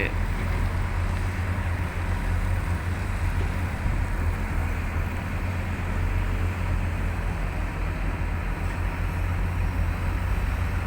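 Diesel engine of a Komatsu excavator running steadily: a constant low rumble with an even hiss above it.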